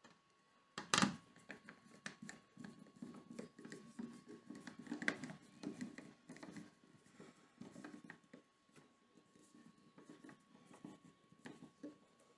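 Hands fitting a cover plate over a wall dimmer switch: a sharp knock about a second in, then a run of small clicks, taps and scrapes.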